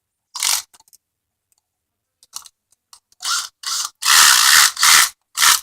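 A run of short scraping, rubbing noises: one near the start, then several in quick succession from about three seconds in, the longest just past four seconds.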